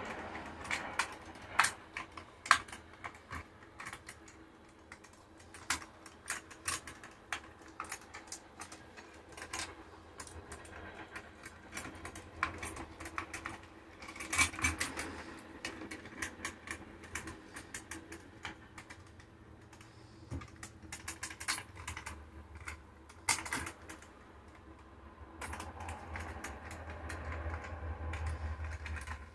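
Irregular small clicks, taps and rustles of hands joining electrical wires and handling a small plastic light fixture at an overhead electrical box, with a few sharper clicks among them.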